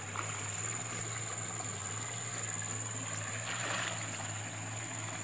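Steady background with a low hum and a thin high whine, and a brief soft swish of water about three and a half seconds in as a hand dip net is worked in a shallow stream.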